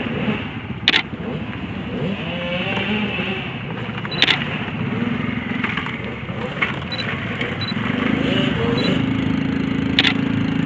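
Small engine of a step-through business motorcycle running at low revs while the bike is ridden over steep rocky ground, growing louder near the end. Three sharp knocks cut through it.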